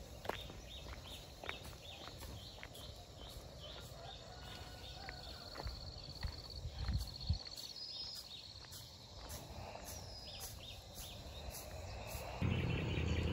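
Outdoor nature ambience: insects trilling on a high note that comes and goes, with birds chirping repeatedly in short falling chirps a few times a second and a few sweeping whistles. Near the end a low steady engine hum cuts in abruptly.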